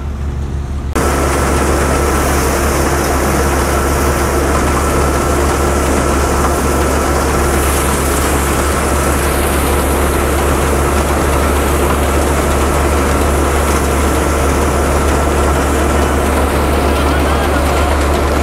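Belt-driven peanut thresher running steadily as peanut vines are fed into it, with a deep engine hum under a thin steady whine. Louder from about a second in.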